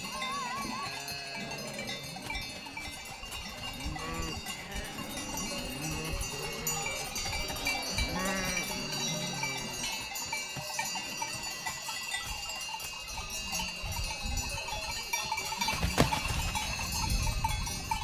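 Bells on a grazing sheep flock ringing and clanking continuously, with sheep bleating now and then. A single sharp knock comes near the end.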